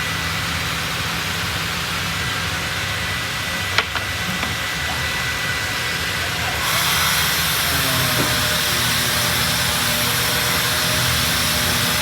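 Steady hum of a robotic MDF panel-sanding machine running, with one sharp click a little before four seconds in. Past the halfway point a sander's higher hiss joins in and keeps going.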